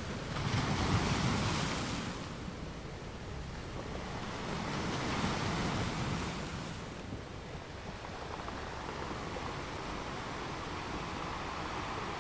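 Sea surf washing against shore rocks, two surges of breaking water, one just after the start and a longer one about four and a half seconds in, over a steady low rumble of wind on the microphone.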